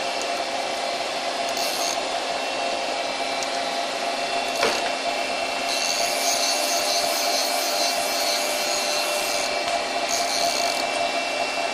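CNC lathe standing by with its spindle stopped: a steady machine hum with several fixed tones. Short stretches of higher hiss come in about two seconds in, from about six to nine and a half seconds, and again near ten seconds. There is one click near the middle.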